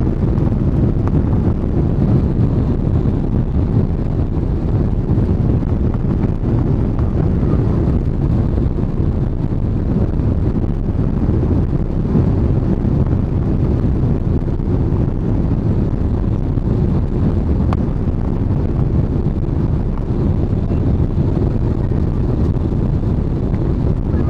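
Boeing 777-300 airliner's engines and airflow, heard inside the passenger cabin as a loud, steady, deep rumble.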